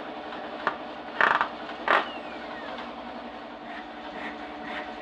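A hand saw cutting a block of wood, its strokes coming evenly about two a second near the end. Before that, a few short, loud bursts of noise.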